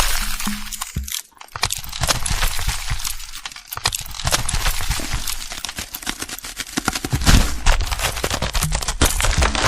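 Cracking and crumbling sound effect of ground breaking apart: a dense run of crackles and snaps over a low rumble that swells about seven seconds in.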